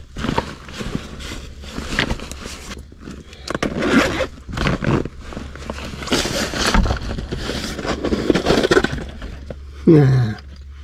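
Hands rummaging through a nylon backpack, an irregular run of fabric rustling and contents shifting and scraping. About ten seconds in, a short hum from a man's voice falls in pitch.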